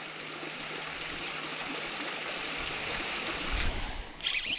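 Steady rushing of water that slowly grows louder, with a few low thumps about three and a half seconds in. Near the end a high, wavering squeal starts up.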